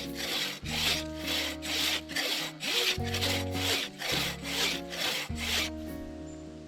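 Hand saw cutting through wood in quick back-and-forth strokes, about three a second, which stop shortly before the end.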